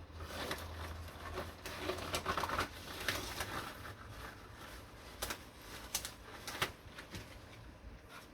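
Dishes being washed by hand at a sink: short scrubbing and splashing swishes, then a few sharp clinks of dishware.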